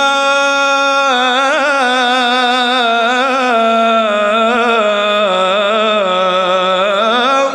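A male munshid sings an unaccompanied Islamic ibtihal in the Egyptian style. He holds one long steady note for about a second, then moves into wavering melismatic ornaments on a drawn-out vowel.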